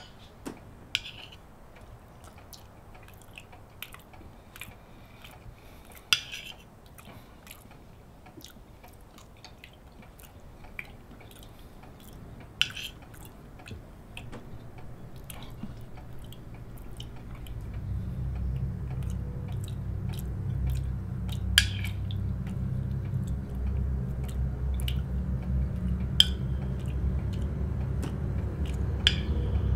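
Cutlery clinking against plates and quiet chewing at a dinner table, with a sharp clink every few seconds. About halfway through, a low rumble swells in and keeps growing louder beneath them.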